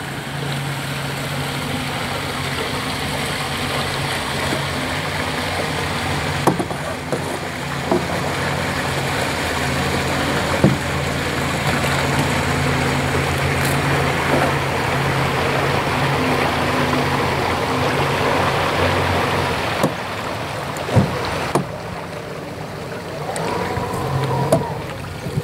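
An engine running steadily with a low hum, which fades out about twenty seconds in. A few sharp knocks, as the paddle strikes the canoe, stand out over it.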